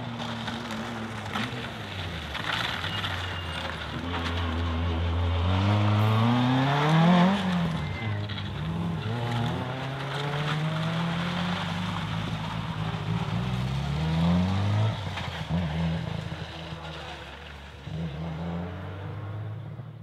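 Rally car engine revving hard on a competitive stage, climbing in pitch to its loudest about seven seconds in, dropping at a gear change, then climbing again to a second peak around fourteen seconds before fading out at the end.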